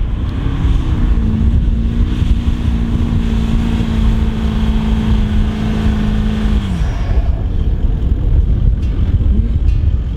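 A 4WD engine held at steady high revs under load in soft sand, with a heavy low rumble throughout, then backing off about seven seconds in.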